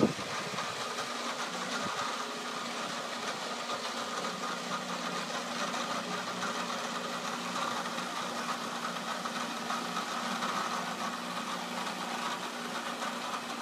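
The 110-volt electric motor of a portable HVAC/shingle lift running steadily as the lift is lowered, a constant mechanical hum with a whir over it.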